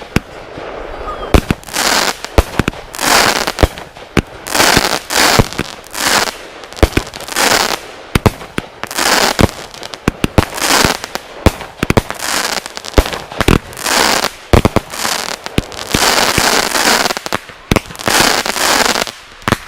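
Two consumer firework cakes, Legend's Matrix Power and Black Cat's Blowout, firing together: a rapid, unbroken string of sharp launch reports mixed with bursts of noise about a second long as the shells break.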